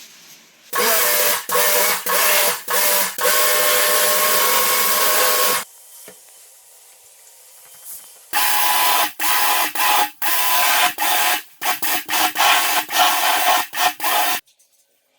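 Spray gun used to clean air-conditioner parts, jetting in loud hissing bursts that stop and start as the trigger is let go and squeezed again: one long run, a pause of about three seconds, then a second run of shorter bursts.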